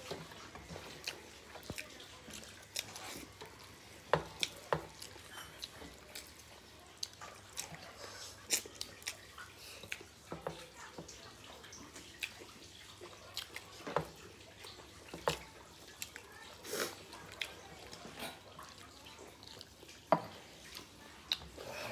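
Wet chewing and lip-smacking of people eating rice and curry with their hands: an irregular string of short smacks and clicks, some louder than others.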